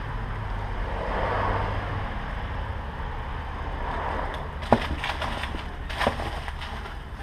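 Handling noise from a wiring harness and its plastic and bubble-wrap packaging being packed into a cardboard box: steady rustling and crinkling, with a couple of sharp clicks in the second half.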